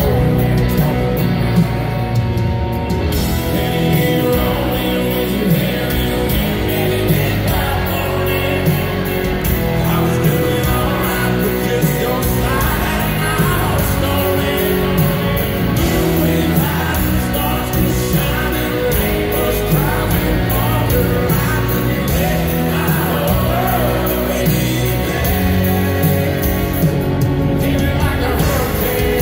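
Live country band playing a song in an arena, with electric guitars and drums under a male lead vocalist singing, recorded from among the audience.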